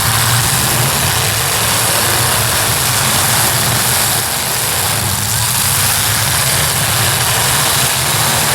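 Demolition derby cars' engines running together in the arena, a loud, steady low drone with no single crash standing out.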